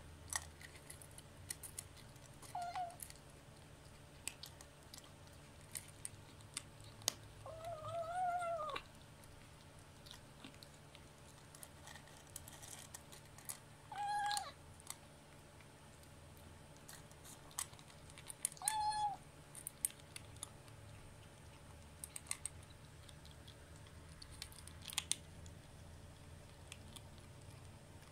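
Kitten eating dry kibble, crunching with scattered clicks, and giving four short pitched 'nom nom' calls while it eats, the second about a second long and rising then falling. The owner reads this eating-song as a growl telling others the food is its own.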